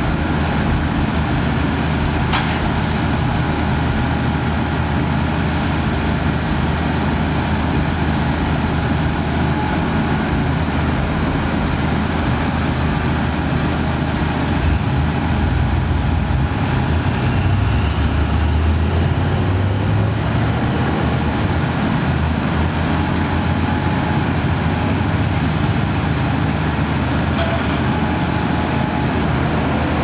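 Concrete pump truck's engine running steadily to drive the hydraulics as the boom folds down, with a heavier low rumble for a few seconds around the middle. A brief sharp click near the start and another near the end.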